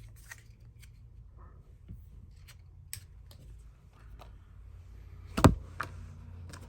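Scattered small clicks and taps of objects being handled on a workbench, with one louder knock about five and a half seconds in, over a low steady hum.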